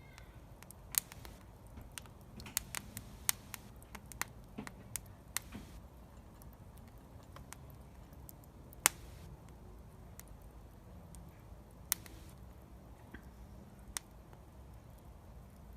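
Wood fire crackling: irregular sharp pops and snaps at uneven intervals over a low steady rumble, with the loudest pop about nine seconds in.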